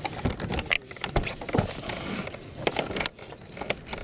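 Small waves slapping and knocking against a plastic sit-on-top kayak hull at sea: a wash of water with many irregular sharp knocks.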